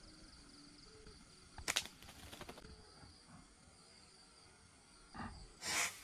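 A faint, steady high insect trill, broken about two seconds in by a short run of sharp clicks and rustling. A louder rustle comes near the end.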